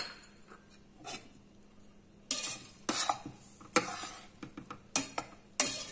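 A spoon stirring cooked vegetable fried rice in an aluminium pressure cooker, scraping and clinking against the side of the pot in uneven strokes that begin about two seconds in. A single knock comes right at the start.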